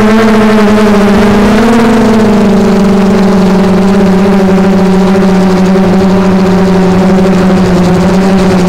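Propellers of a hovering multirotor drone, a steady buzzing hum with many overtones heard close to the camera. The pitch rises a little about two seconds in, then slowly sinks.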